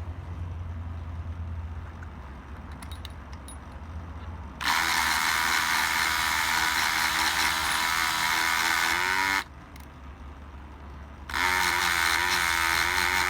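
Dremel rotary tool driving a Drempick pick-gun attachment, its needle rattling against the pins inside a five-pin night latch lock cylinder. It starts about four and a half seconds in, runs for about five seconds, stops for about two, then starts again. A few faint clicks come before it.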